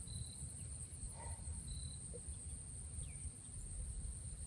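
Insects chirping steadily in a high, evenly pulsing trill, over a low rumble, with a few faint short chirps.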